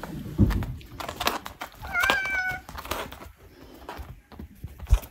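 Tabby domestic cat giving a single short meow about two seconds in, among light taps and a couple of soft thumps.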